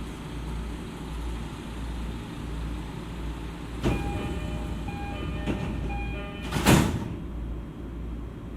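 E231-series commuter train standing with its equipment humming low and steady; about halfway through a knock, then a door chime sounding in short repeated tones, and the sliding doors shutting with a loud thud, the doors closing before departure.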